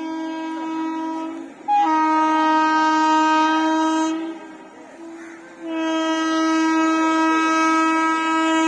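Horn of an approaching Indian Railways train, sounding long steady blasts. A softer blast is followed by two loud ones of a few seconds each; the last is still sounding at the end.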